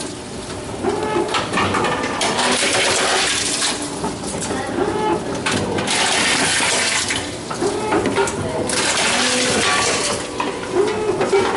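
Tomra reverse vending machines taking in returned bottles and cans: repeated bursts of rushing, rattling noise a second or two long, one after another, with a short low whir coming back every few seconds.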